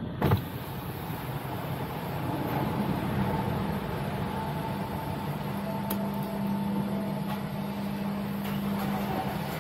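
Steady mechanical hum of vehicle engines and ventilation on a ro-ro ferry's enclosed car deck, heard from inside a waiting car, with a short knock just after the start.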